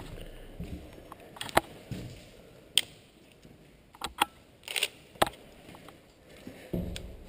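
Footsteps over a debris-strewn floor, with a handful of sharp cracks and clicks of debris crunching underfoot and low thuds of the steps.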